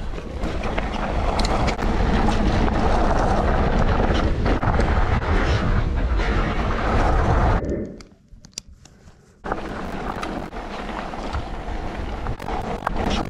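Wind rushing over the camera microphone and mountain bike tyres rolling over loose gravel, with many small clicks and ticks from stones. The noise drops out abruptly for under two seconds just past the middle, then returns quieter.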